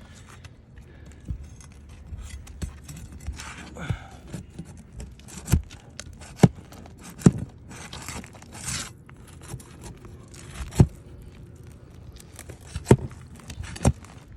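Roof shingles being worked loose and lifted by hand and tool: scraping and rubbing, with about eight sharp knocks spread through. This is the shingles being lifted to test whether they can be repaired without breaking.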